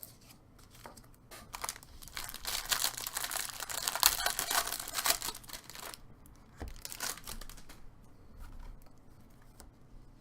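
Crinkling and tearing of plastic card-pack wrapping being handled, loudest for several seconds in the first half, with a shorter burst of crinkling shortly after, then faint handling noise.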